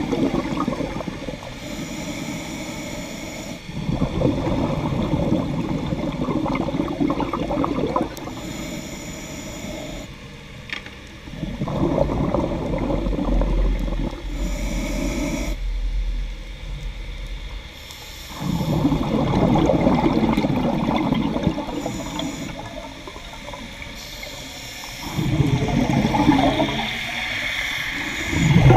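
Scuba regulator breathing underwater: four long, bubbling rushes of exhaled air, each a few seconds, alternating with the regulator's quieter hiss on each inhale.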